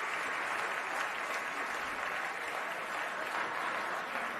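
Large audience applauding steadily in a big hall, a dense even clatter of many hands clapping.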